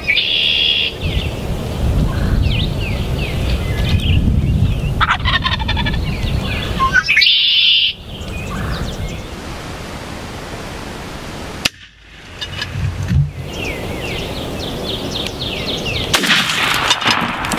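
Wild turkey tom gobbling: one loud gobble right at the start and another about seven seconds in. Small songbirds chirp throughout.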